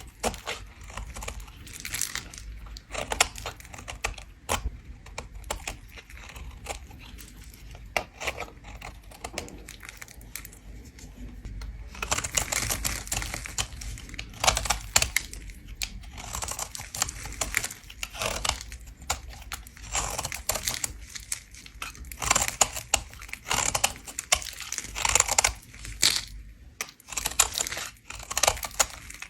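A bar of soap being scraped, shaving off in a dense run of small scratchy clicks and rasps, thicker and louder from a little before halfway through.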